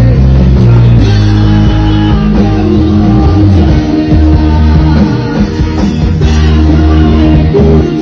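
Live rock band playing loud, with electric guitars and bass notes, heard from on stage.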